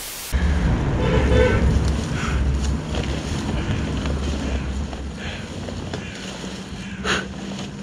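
Wind buffeting the microphone: a loud, uneven low rumble that sets in just after a brief hiss of static and slowly eases off, with a sharp click about seven seconds in.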